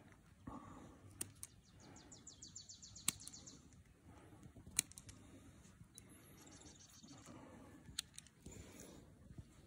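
Hoof trimming shears snipping a goat's long-untrimmed hoof: four sharp clicks, a second or two apart. A small bird trills twice in the background.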